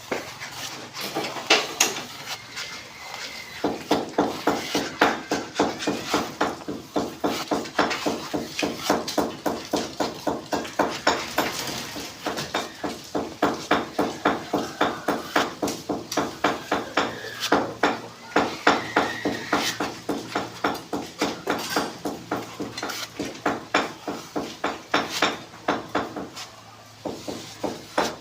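Hammer striking repeatedly in a fast steady rhythm, about three blows a second, each with a short ringing tone. There are brief pauses a few seconds in and near the end.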